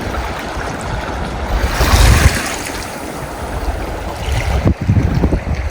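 Sea waves washing in and breaking, with wind buffeting the microphone; the loudest surge comes about two seconds in, and another follows near the end.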